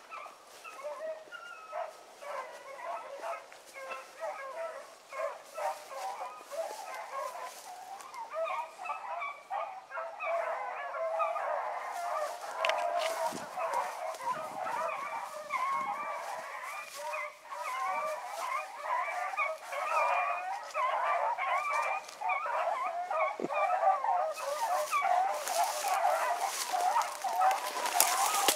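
A pack of rabbit hounds baying on a running rabbit, many voices overlapping continuously. It grows louder from about halfway through as the pack comes closer.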